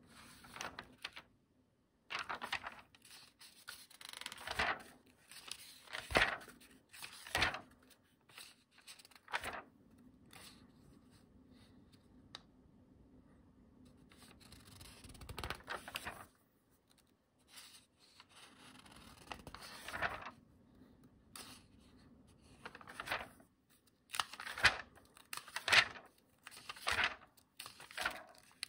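Pages of a thick bound volume of old paper being turned by hand: a series of paper rustles and swishes, some quick and sharp, a few longer and slower, with short pauses between turns.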